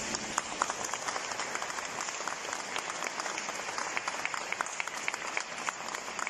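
Audience applauding in a large stone church nave: dense, steady hand-clapping.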